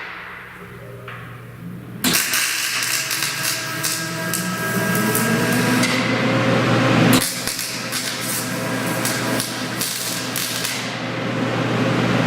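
Wire-feed (MIG) welder arc crackling as a bead is run along a flat-bar edge on a loader bucket. It strikes up sharply about two seconds in, stops briefly around seven seconds, and restarts at once.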